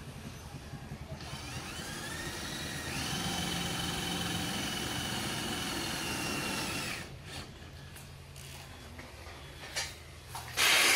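Cordless power drill driving a screw: the motor winds up with a rising whine about a second in, holds steady for about four seconds and stops. A few sharp clicks follow, then a short loud knock near the end.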